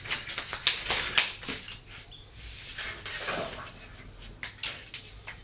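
A child's bicycle clattering onto a concrete lane as it falls over: a quick run of rattling knocks and clicks in the first second and a half, with one more sharp knock about three seconds in.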